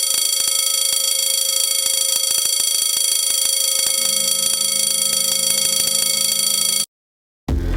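Fire alarm sounding one loud, steady electronic tone that cuts off abruptly near the end, with a lower hum joining about halfway through.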